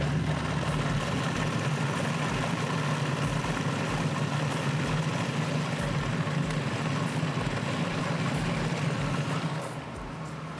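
Electric food processor motor running steadily, its blade puréeing cooked chicken livers into a smooth pâté; the sound drops in level near the end.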